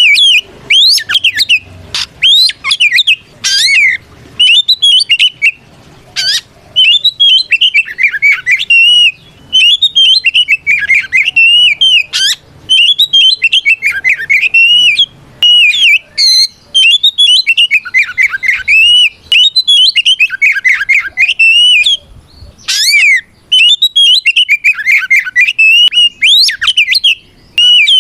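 Oriental magpie-robin (kacer) singing its loud, full 'ngeplong' fighting song to challenge a rival. It sings phrase after phrase of rapid, sliding whistles and warbles, each a second or two long, with short breaks between them.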